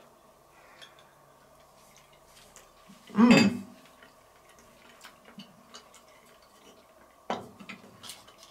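A spoon clinking and scraping against small dishes in scattered light clicks, with one loud short knock about three seconds in and another sharper knock a little before the end.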